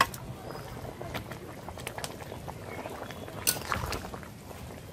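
Curry simmering and bubbling in a metal kadai while a flat metal spatula stirs it, clacking and scraping against the pan a few times. The loudest knock comes about three and a half seconds in.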